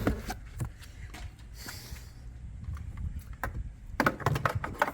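Hands working with wiring and connectors: scattered clicks and taps, a brief rustle about one and a half seconds in, and a quick run of clicks near the end, over a low steady rumble.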